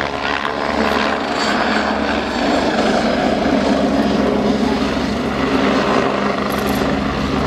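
Agusta A109 BA twin-engine helicopter in flight, a steady drone of rotor and turbines. Through the middle the sound grows a little louder and rougher as the helicopter manoeuvres, then settles back to the steady drone.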